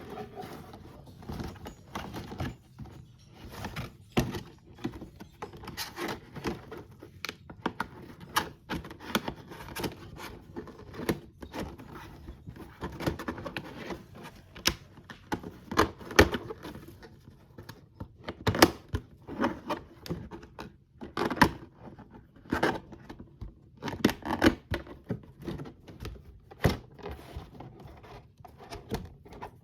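A plastic box being handled: a steady run of clicks, taps and knocks with rubbing and scraping in between, several sharper knocks in the middle and later part.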